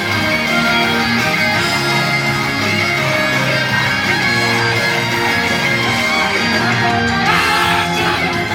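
Upbeat pop-rock idol song played live, in an instrumental passage led by guitar with no singing.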